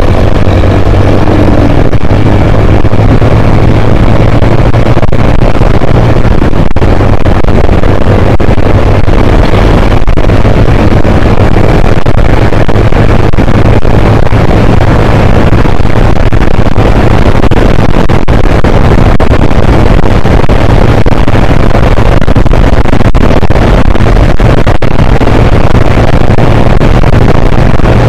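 Yamaha YBR-Z's 125 cc single-cylinder four-stroke engine running at steady cruising speed on the road, a low steady engine note under loud wind rush on the microphone.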